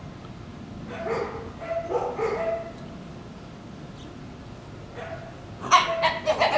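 Shiba Inu puppies making fox-like screaming and yipping sounds as they squabble in play: two bouts of cries in the first half, then a louder cluster of several sharp yelps near the end.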